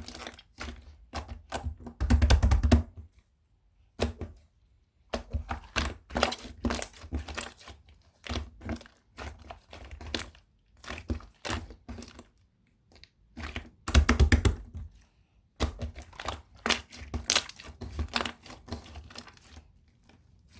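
Rapid clicks, crackles and taps of something being handled close to the microphone, with two louder, longer crunching bursts, one about two seconds in and one about fourteen seconds in.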